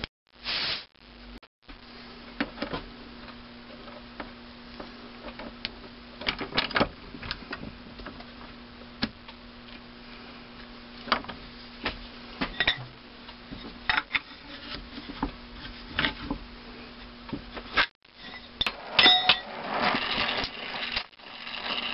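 Oxy-acetylene torch hissing steadily as it heats a valve stem tip clamped in a steel bench vise. Scattered light metallic clicks and taps come from the valve being handled. The hiss grows louder near the end.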